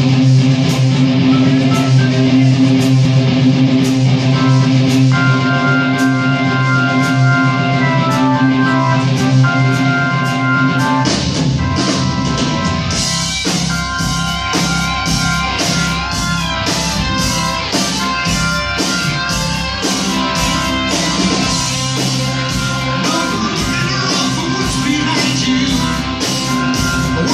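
Live rock band with electric guitars, keyboard and drum kit playing a song's opening. Held chords ring for about eleven seconds, then the drums and bass come in and the full band plays on.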